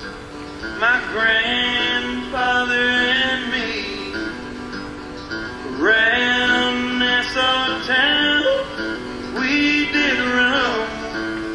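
Background music: a man singing over guitar, in phrases with short gaps between them.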